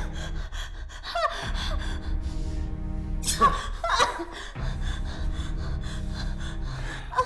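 A woman's frightened gasps and whimpers, heard about a second in and again around three and a half to four seconds, over a steady low drone of background music.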